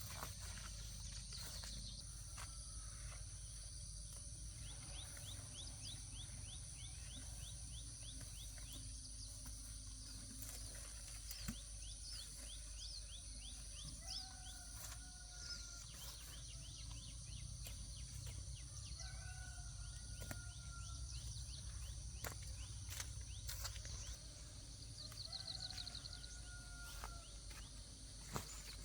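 Outdoor rural ambience: a steady high-pitched insect drone with runs of rapid ticking, and three short, flat animal calls several seconds apart, over a low hum. A few faint knocks are scattered through it.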